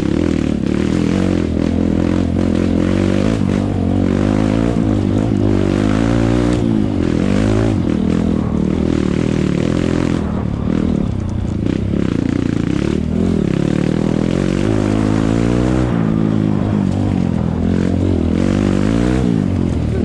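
Single-cylinder dirt bike engine pulling up a rough trail, its pitch rising and falling again and again with the throttle, with knocks and rattles from the bike going over rocks and ruts.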